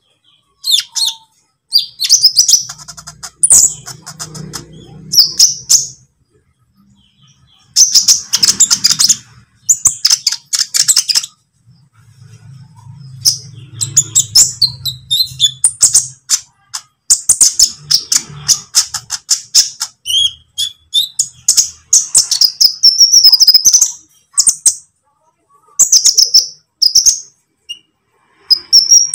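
Young olive-backed sunbird (konin) singing: bursts of high, rapid chirping and ticking trills broken by short pauses.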